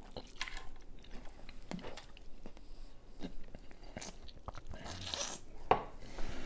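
Eating sounds: biting into and chewing seafood-boil food, with scattered crunches and clicks and one sharp crack near the end.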